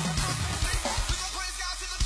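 Loud up-tempo gospel hip-hop music with hard drum hits and deep bass notes sliding down at the start; the low end thins out in the second half.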